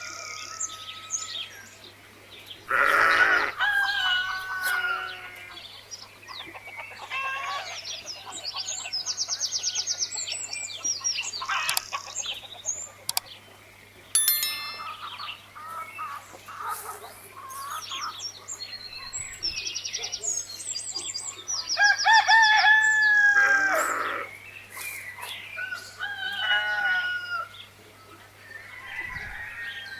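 Chickens calling, with a rooster crowing and small birds chirping throughout; the loudest long calls come about three seconds in and again past twenty seconds. A steady low hum runs underneath.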